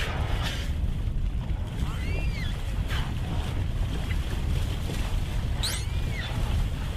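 Wind buffeting the microphone over a steady low rush of sea. Near two seconds in and again near six seconds in, short high calls rise and fall in pitch.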